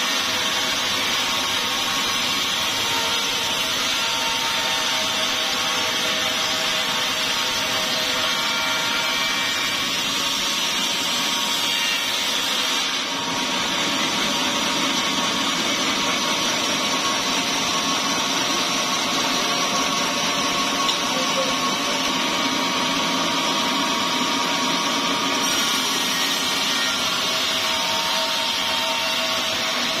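Carriage-fed sawmill band saw ripping a small-leaf acacia log: a loud, steady cutting noise of blade and motor with faint steady tones, dipping briefly about halfway through.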